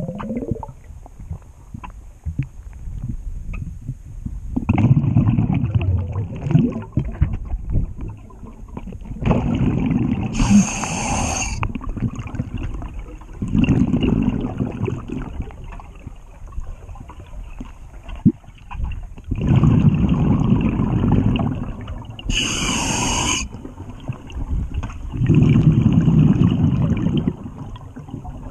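A diver breathing out underwater, heard through the camera housing: about six gurgling bursts of bubbles, each one to three seconds long, three of them with a sharper hiss.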